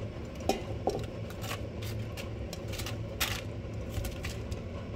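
Irregular light clicks and knocks, about one or two a second, as fried baby potatoes are tipped by hand from a ceramic bowl into a parchment-lined steel pot, over a steady low hum.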